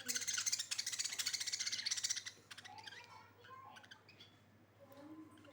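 Budgerigars chattering and chirping: a loud burst of rapid high chatter for about two seconds, then softer scattered chirps.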